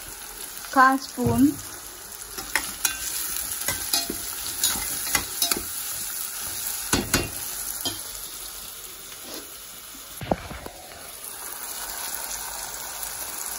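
Sliced onions and whole spices sizzling in oil and ghee in a cast-iron pot while a slotted spatula stirs them, with a run of scrapes and taps against the pot. The onions are being sautéed to soften, with salt just sprinkled on to help them along.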